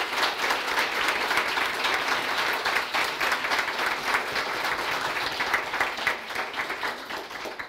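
An audience applauding, a dense run of hand claps that thins out near the end.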